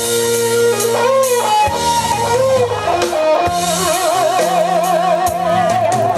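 Live band playing the song's instrumental introduction: a lead melody whose held notes waver with wide vibrato in the second half, over bass, chords and drums.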